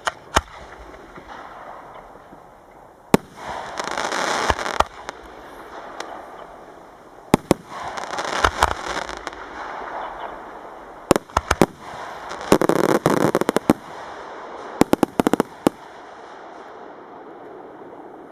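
Fireworks display: sharp bangs of bursting fireworks, some single and some in rapid clusters, with stretches of crackling between them. It settles down near the end.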